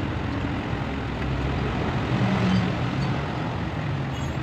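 Steady hum of a running motor vehicle engine, a little louder about two seconds in.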